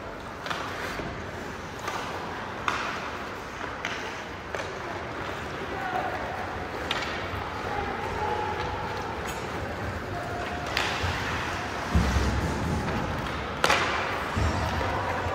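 Ice hockey play in a rink hall: sharp clacks of sticks and puck, with heavy thuds against the boards about twelve and fourteen seconds in, over a background of voices echoing in the hall.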